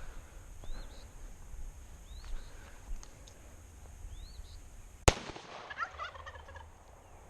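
A single shot from a Hi-Point .45 ACP pistol about five seconds in, followed at once by a turkey gobbling in reply to the shot. Faint short chirps from a small bird come before it.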